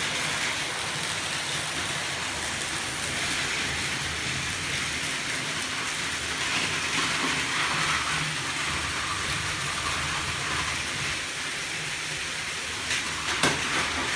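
Battery-powered Plarail toy trains running on plastic track: a steady whirr of their small motors and gears with the rattle of plastic wheels over the rails, running a little slowly on batteries the owner means to replace. A sharp click near the end.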